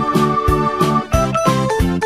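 Background music: a bright tune over a steady beat of about three hits a second, with one high note held for the first half before the melody moves on.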